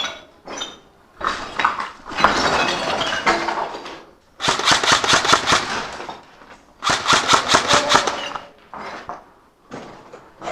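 Two bursts of full-auto airsoft gun fire, rapid evenly spaced shots, the first about four and a half seconds in and the second just under seven seconds in. A couple of seconds of rustling noise comes before them.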